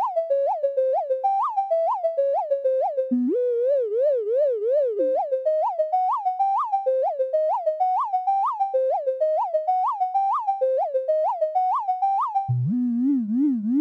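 Electronic music: a lone synthesizer lead plays a quick run of short notes, each with a brief upward pitch flick. It wavers up and down for a couple of seconds about three seconds in, and drops to a lower wavering tone near the end, with no beat underneath.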